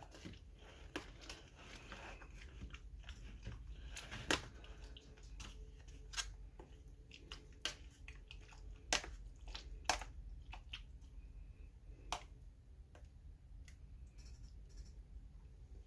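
A person chewing a mouthful of fresh pico de gallo, with soft wet mouth sounds and scattered small sharp clicks every second or two.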